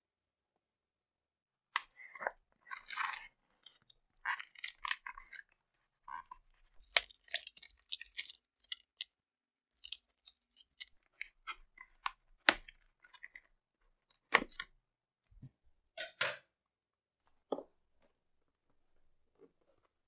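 Scissors slitting the packing tape along the seam of a cardboard box, then the box's flaps being handled: irregular crackling and scraping of tape and cardboard with a few sharp knocks, starting about two seconds in.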